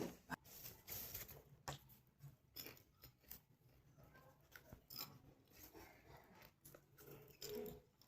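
Near silence broken by faint, scattered crunches, as of popcorn being chewed.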